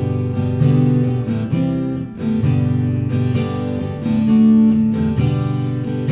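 Acoustic guitar strummed, playing a chord intro with the chords changing every second or so.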